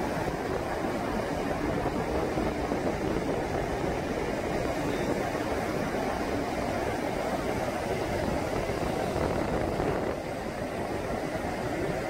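Gulf of Mexico surf breaking on a sandy beach: a steady, continuous rushing wash of waves.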